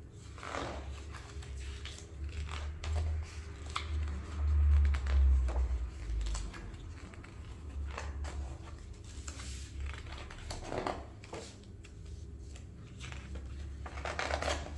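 Pages of a large hardback coffee-table book being turned one after another: paper swishing and rustling, with small ticks and a dull low thump about four to five seconds in.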